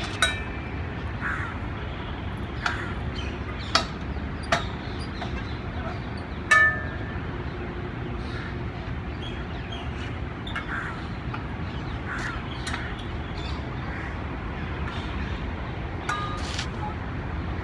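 Metal grips on chains clinking and clanking against an outdoor gym bar a few times, loudest about six and a half seconds in with a short metallic ring, over steady low background noise. Birds call now and then.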